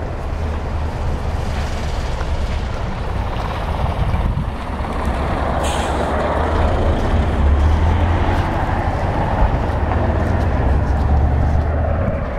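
Wind buffeting the camera microphone, a steady low rumble, with a short hiss about six seconds in.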